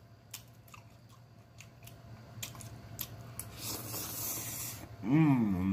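Spaghetti slurped off a fork for about a second, after a few faint clicks, then a hummed "mm-mm" of approval near the end.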